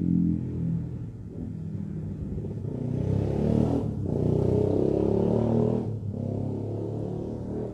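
A motor vehicle's engine running with its pitch shifting as it revs, growing louder for a few seconds in the middle and briefly dipping twice.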